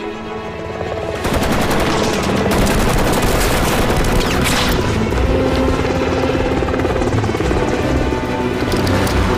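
Orchestral score; about a second in, a UH-1 Huey helicopter's two-bladed rotor comes in with a loud, rapid chopping, mixed with rapid machine-gun fire.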